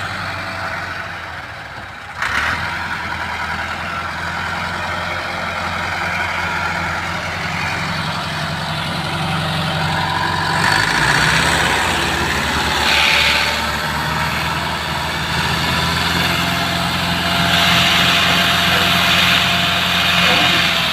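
Tractor diesel engine running under heavy load, straining to pull a trolley loaded with sugarcane that is stuck in mud. The engine gets louder about two seconds in and its pitch shifts again about halfway through.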